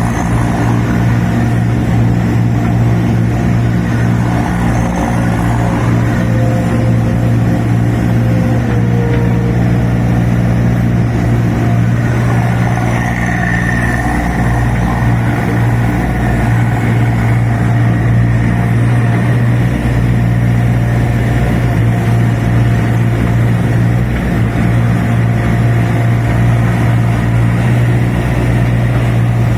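The 14 kW Kubota diesel engine of a 2.7-ton zero-tail mini excavator running steadily at a constant speed while the machine is put through a working test.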